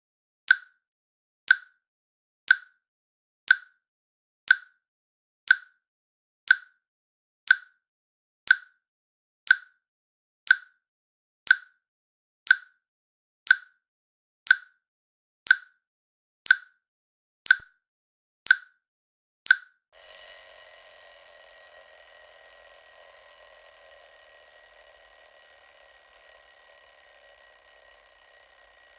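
Countdown timer clicking once a second, about twenty clicks, then an alarm starts suddenly about twenty seconds in and rings steadily with several high tones, slowly getting quieter: the timer has reached zero.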